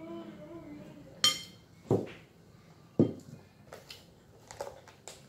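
A spoon and crockery clinking at a meal table: one sharp ringing clink about a second in, then two duller knocks of a dish or mug set down on the tabletop, and a few light clicks.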